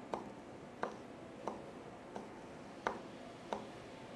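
Combat knife cutting quarter-inch leather in quick repeated strokes. Each stroke ends in a short, sharp knock, about seven evenly spaced knocks, roughly one every two-thirds of a second.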